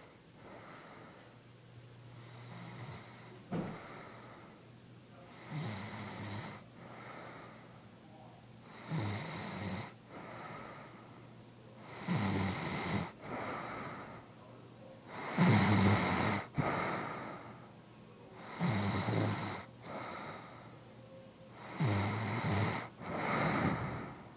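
A sleeping woman snoring, one snore on each breath about every three seconds, faint at first and louder from about five seconds in.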